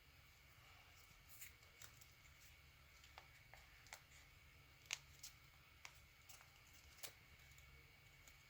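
Paper being handled and creased by hand: faint, scattered crinkles and taps, the sharpest about five seconds in and another near seven seconds, over a low steady hum.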